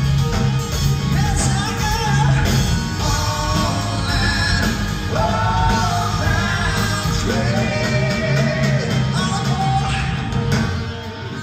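Live rock band playing: a male lead singer belting the vocal over electric guitar, bass guitar and drums.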